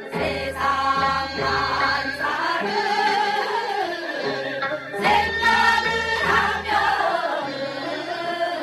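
Group of women singing a Gyeonggi folk song (Gyeonggi minyo) together in long sung phrases, a new loud phrase beginning about five seconds in.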